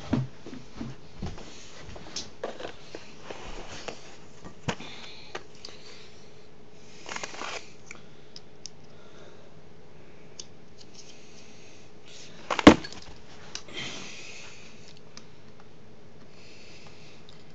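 Small screwdriver and laptop plastic being handled while the screen-bezel screws are undone: scattered light clicks and taps, a couple of short scrapes, and one sharp, much louder click about two-thirds through.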